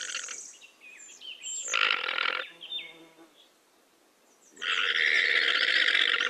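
Llama vocalizing: a short breathy, noisy call about two seconds in, then a longer, steadier noisy call starting past the middle.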